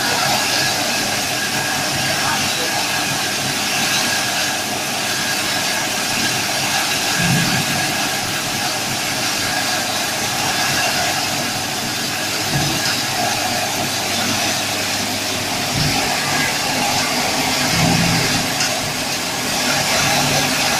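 PET bottle flake hydro extractor (dewatering dryer) running steadily: a loud, even mechanical whir and hiss, with a few brief low thumps.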